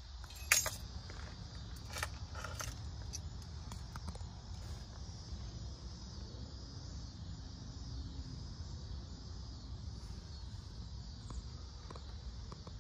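Steady low outdoor rumble and faint hiss, with a few sharp clicks and scrapes of handling about half a second and two seconds in.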